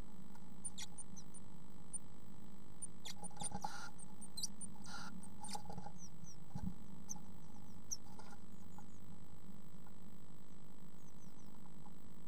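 Blue tits shuffling and pecking in the wood shavings of a nestbox, with scattered scratchy clicks, and two short harsh hisses about three and a half and five seconds in: the female warning the male to leave the box. A steady electrical hum from the nestbox camera runs underneath.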